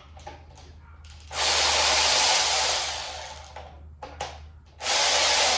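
Cordless power ratchet running in two bursts, one of about two seconds that winds down and a shorter one near the end, backing out the oil pan bolts on an engine block. Light clicks of the socket and extension being fitted come between the bursts.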